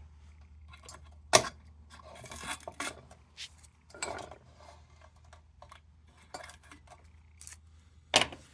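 Small metal parts of a tin lantern being handled and fitted together: scattered clinks and scrapes, with a sharp click about a second in and another near the end.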